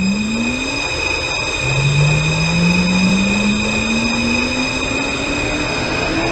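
Taipei Metro train's electric traction motor whining as it accelerates: a low whine rising in pitch, dropping back about a second and a half in, then climbing slowly again, over a steady high-pitched tone.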